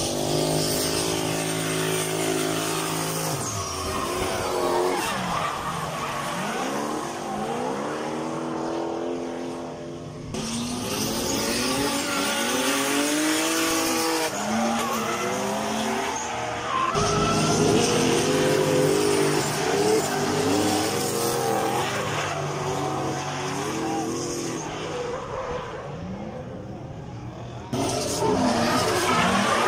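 Drift cars' engines revving hard, the pitch repeatedly rising and falling as they slide sideways, over the hiss and squeal of spinning tyres. The sound changes abruptly a few times, at cuts between runs.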